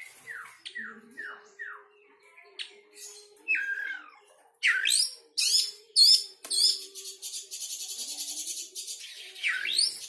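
A songbird singing: a run of short downslurred whistles, then from about halfway loud upswept calls and a fast, high, buzzy trill.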